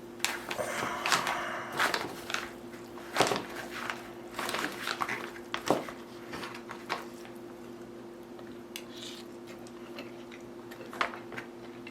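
Crinkling of a resealable meal pouch and a utensil clicking and scraping in it, a cluster of sharp clicks and rustles over the first six or seven seconds, then only a few faint ticks. A steady low hum runs underneath.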